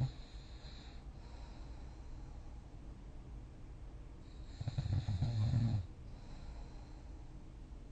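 A person snoring in sleep: one loud, low snore with a fluttering vibration lasts about a second and a half around the middle, with quiet breathing before and after it.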